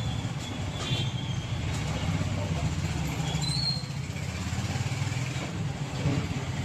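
Street traffic noise dominated by a vehicle engine running steadily with a low rumble.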